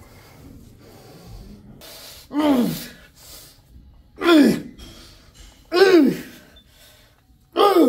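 A person grunting with effort in time with exercise repetitions: four short, loud grunts, each falling in pitch, spaced evenly about one and a half to two seconds apart.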